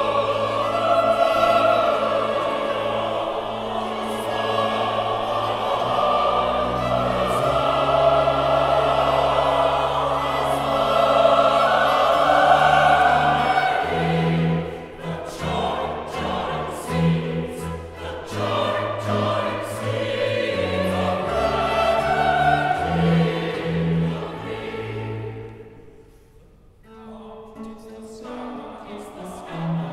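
Mixed choir singing baroque choral music with a string orchestra and harpsichord accompanying. Near the end the music falls away briefly, then the choir comes back in.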